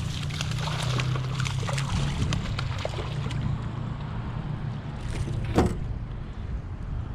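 Small fishing boat on the water with a steady low motor hum, scattered small clicks over the first few seconds, and a short swish about five and a half seconds in.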